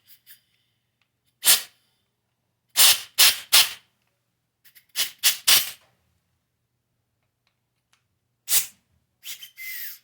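Short blasts of compressed air blown through the small passages of a cleaned lawnmower carburetor to clear them. About a dozen quick hisses come in clusters: one alone, then a run of three, then several more, with gaps of silence between.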